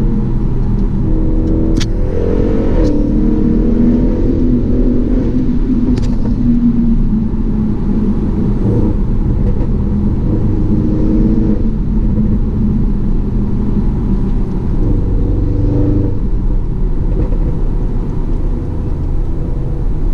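Audi RS7's twin-turbo V8 with modified exhaust, running under way at highway speed and heard from inside the cabin together with road noise. The engine note shifts pitch a few times, and a few sharp clicks come in the first six seconds.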